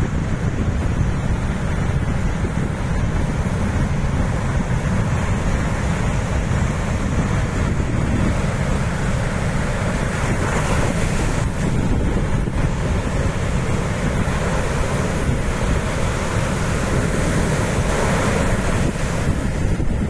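Ocean surf breaking in rows of whitecaps, a continuous churning wash that surges louder about halfway through and again near the end. Wind buffets the microphone throughout.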